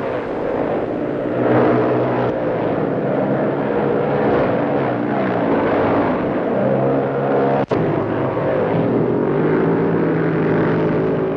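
350 cc racing motorcycles passing one after another through a bend, their engine notes rising and falling. A single sharp click about two-thirds of the way through.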